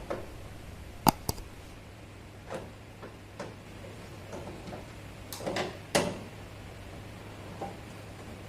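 Scattered sharp knocks and clicks of metal parts and hand tools being handled during car body work, the loudest about a second in and again near six seconds, over a low steady hum.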